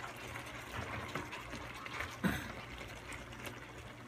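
A pan of ampalaya (bitter melon) in stock simmering on the stove, a steady bubbling hiss, with one short knock a little over two seconds in.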